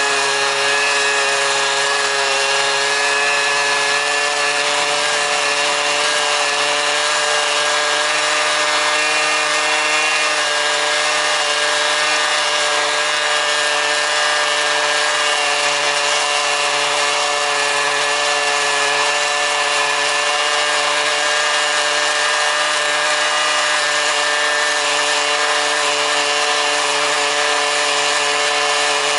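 Cembre Robokatta automatic rail saw's petrol engine running steadily at full speed while its worn abrasive cutting disc grinds through a steel rail. A constant engine drone with steady tones over a dense grinding hiss, with no let-up.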